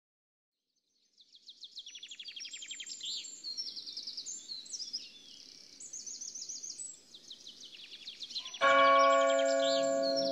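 Birds singing, with quick repeated chirps and trills, starting about a second in. Near the end a loud held accordion chord comes in, the start of a waltz.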